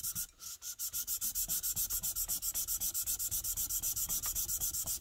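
Steel plane iron from a Stanley 9 1/4 block plane rubbed rapidly back and forth on sandpaper laid on a flat plate, lapping its back flat. The gritty strokes come about nine a second, with a brief pause just after the start, and stop at the end.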